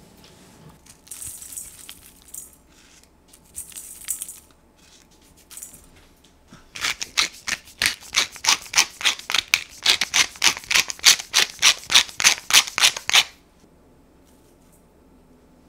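Pepper mill grinding black pepper: a fast, even crunching rasp, about five grinds a second, for about six seconds in the second half, stopping abruptly. Two shorter, fainter rasps come earlier, about one and four seconds in.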